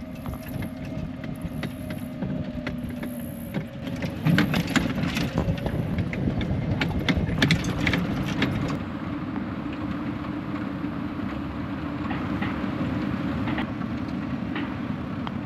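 Golf cart driving along, a steady low running sound with a burst of rattles and knocks a few seconds in.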